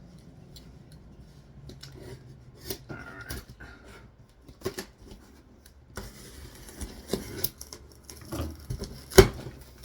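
Box cutter slicing the packing tape on a cardboard box, with scraping and rustling of the cardboard, and a single sharp knock about nine seconds in.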